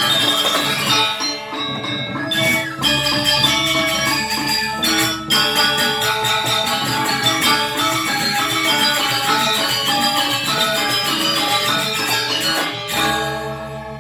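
Balinese gamelan gong kebyar playing a fast, dense passage of metallophones and metal percussion. Near the end the ensemble stops together and the tuned metal keys and gong are left ringing.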